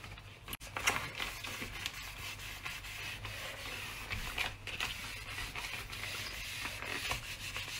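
Antibacterial kitchen wipe rubbed by a rubber-gloved hand across a stainless steel cooktop: a steady scrubbing swish made of uneven strokes.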